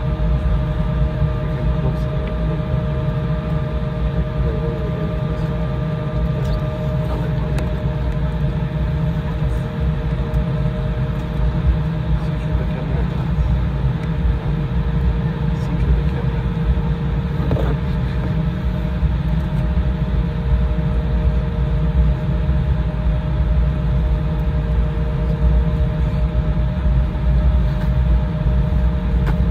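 Steady low rumble of an Embraer E175 airliner cabin on the ground, with a couple of steady hums over it; a higher hum drops out about seven seconds in.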